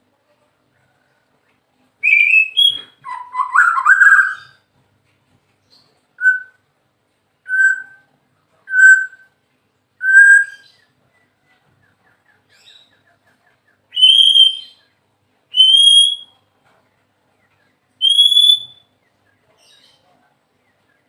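White-rumped shama singing. It starts with a short jumbled phrase, then gives four clear whistled notes at one pitch, evenly spaced, then three higher, rising whistles with gaps between them.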